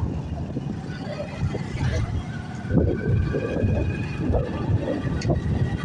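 Massey Ferguson 385 tractor's diesel engine running as it passes close by, pulling a trolley loaded with sugarcane.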